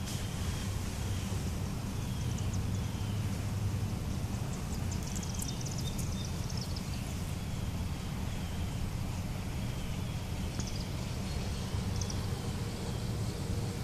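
Steady low outdoor rumble, with a faint short bird note repeating every second or so and a brief run of high chirps about five seconds in.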